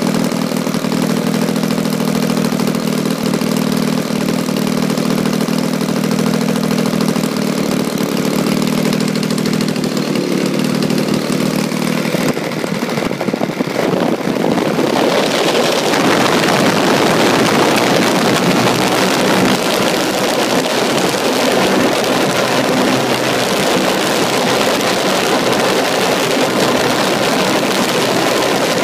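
XYZ 20cc two-stroke gasoline engine of a model airplane, with its propeller, idling steadily at about 2,400 rpm. About halfway through it is throttled up and runs at high speed, about 7,700 rpm, much louder and with a strong rush of propeller wash.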